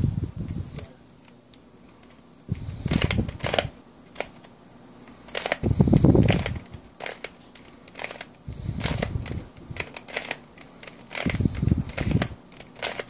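Plastic Wolf Tooth Cube, a skewb-type twisty puzzle, being turned by hand: clicking and clacking of its plastic pieces with dull knocks from handling, in bursts every two to three seconds with short pauses between.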